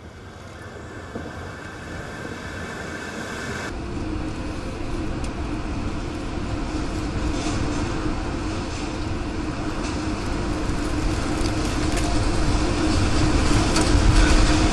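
Roar of a violent EF4 tornado as it closes in on the house. A steady, train-like rushing noise with a low hum underneath grows louder throughout.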